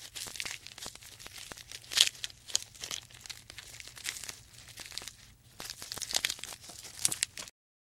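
Irregular crackling, tearing and crunching noises with sharp clicks and a few louder snaps, played as the giraffe's sound. It cuts off abruptly near the end.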